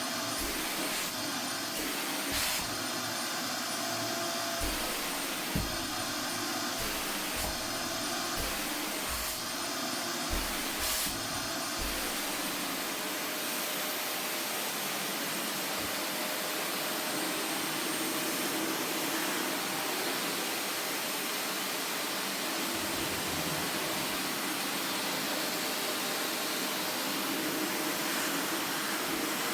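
Vacuum cleaner running steadily, with a faint high whine over its hiss. During the first twelve seconds or so there are repeated short bumps, then it runs evenly.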